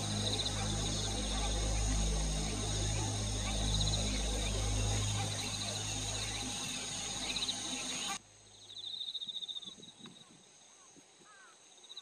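Outdoor ambience of insects trilling in short repeated pulsed bursts over a steady low rumble. About eight seconds in, the rumble cuts off abruptly, leaving the quieter insect trills and a few faint short falling chirps.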